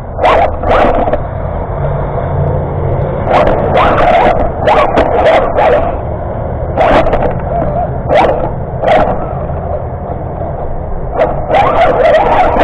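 A dog barking in short bursts, about a dozen, in groups of two or three, over the steady low hum of a radio-controlled car driving across rocks.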